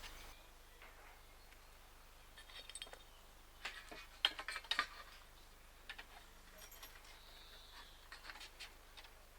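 Scattered light clicks and clinks of small roller-reefing fittings being handled, coming in short clusters with quiet gaps between.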